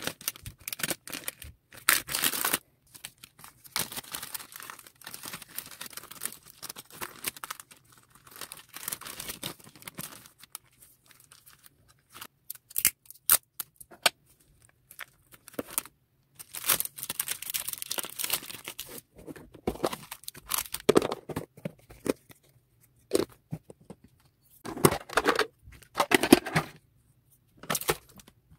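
Clear plastic bags crinkling and rustling in irregular bursts as they are handled and closed around small packed items, with a few sharp clicks and taps of things set down on the table.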